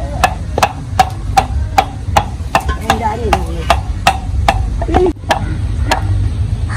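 Food being chopped with a knife in a steady rhythm, about two to three strokes a second, with a short break about five seconds in.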